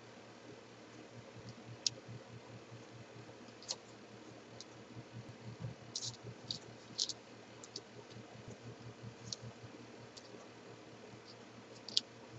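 Small cardboard jigsaw puzzle pieces clicking and tapping faintly against the table as they are picked up and set down, a scattered click every second or so, over a low steady hum.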